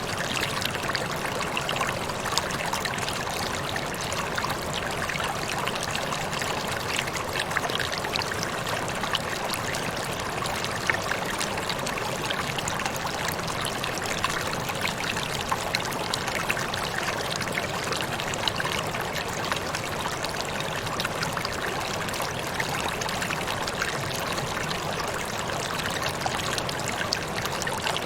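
Waterfall: water falling and splashing in a steady, even rush, with small splashes scattered through it.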